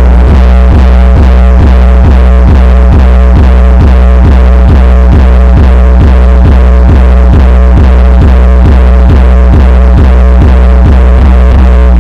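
Bass-heavy electronic music played very loud through a handmade 200-watt mono amplifier and speaker during a sound test: a deep, continuous bass line with an even beat of about three pulses a second.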